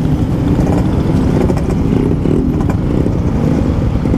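Yamaha RX-King two-stroke motorcycle engine running on the move through an aftermarket PK2 exhaust, a steady loud note whose pitch wavers slightly.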